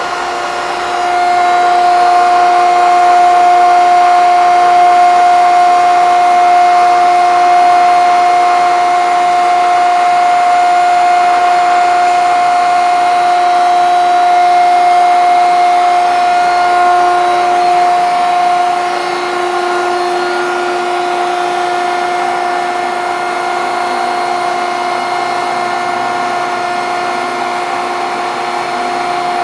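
A 14 x 120 Landis Type C plain cylindrical grinder running with a steady, high-pitched motor whine over a mechanical hiss. It rises a little about a second in and eases slightly past the middle.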